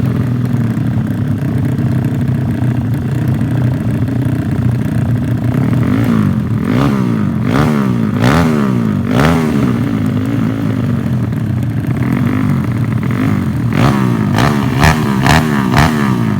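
Motorcycle engine running, then blipped in short revs from about six seconds in, each rev broken by a sharp pop; near the end comes a quick run of several pops. The engine is coughing, stuttering and popping instead of revving cleanly.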